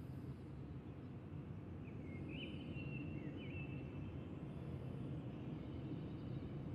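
City ambience: a steady low rumble of distant traffic that slowly grows louder, with a few thin bird calls and short chirps over it about two to three seconds in.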